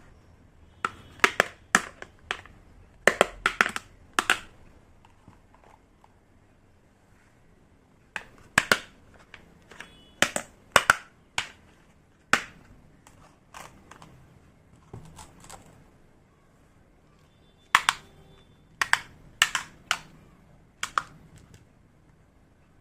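Small hard miniature toy kitchen pieces clicking and tapping as they are handled and set down, in three bursts of sharp taps with quiet gaps between.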